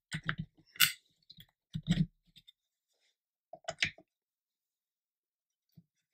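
Light clicks and knocks of a plastic model jet and laser-cut wooden stand pieces being handled and set down on a cutting mat. The clicks come in clusters in the first two seconds and again just before four seconds in.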